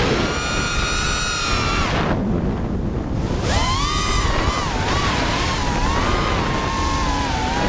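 Five-inch FPV racing quadcopter's DYS SE2205 2300KV brushless motors and three-blade props whining, with wind rushing over the onboard camera's microphone. The whine rises and falls with the throttle, drops out for about a second and a half around two seconds in as the throttle is cut, then sweeps back up and wavers.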